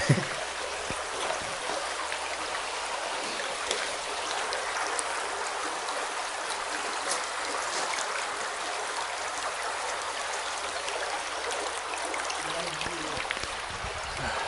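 A small, shallow stream flowing and rippling right at the microphone: a steady rush of water with small splashes ticking through it.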